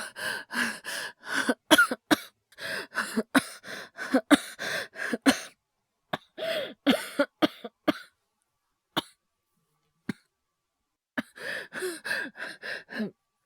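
A man's acted coughing fit: rapid strings of short coughs in three bouts, with near-silent pauses between them.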